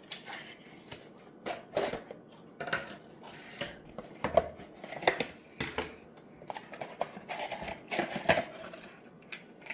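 Toy packaging being handled and opened by hand: an irregular run of clicks, scrapes and rustles.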